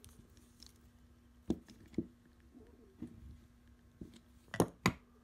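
Metal parts of a click-type torque wrench being handled during reassembly: a handful of light clicks and knocks spread out, with two sharper clicks close together near the end.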